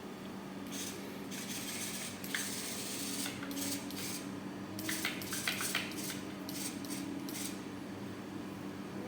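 Irregular light clattering and rattling of small hard objects, in uneven bursts with sharp clicks, over a steady low hum.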